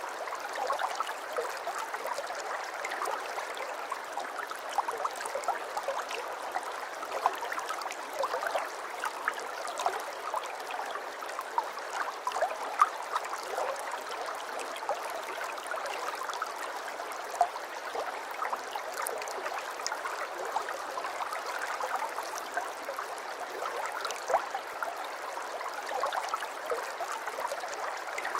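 Aquarium water bubbling and trickling steadily, with many small bubble pops.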